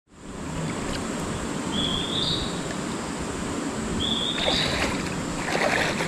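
Steady rush of a shallow mountain stream. A short rising whistle, a bird's call, comes twice. Water splashes near the end as a person wades in the shallows.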